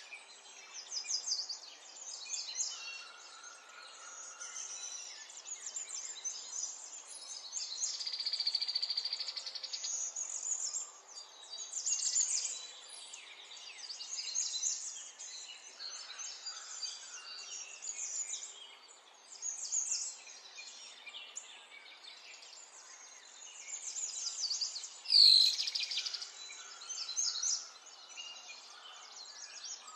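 Paper pattern being cut with scissors and handled, rustling and crinkling in uneven bursts, with one sharp knock about 25 seconds in.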